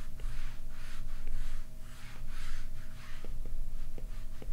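Apple Pencil tip sketching on an iPad screen: a run of short scratchy swishes from quick strokes, with a few light taps of the tip on the glass.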